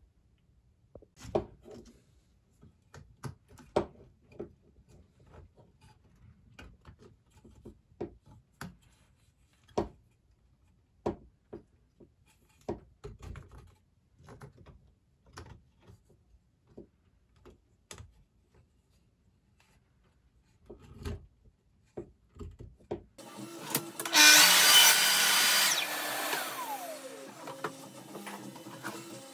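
Scattered short clicks and knocks of 3D-printed plastic and wooden parts being handled and fitted together. Near the end a table saw's motor starts loud and then winds down, its pitch falling, leaving a steady hum.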